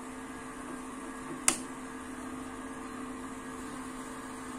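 A single sharp click about a second and a half in as the 144 MHz amplifier's round rocker power switch is pressed back on, restarting it after its over-voltage protection tripped; a steady electrical hum runs underneath.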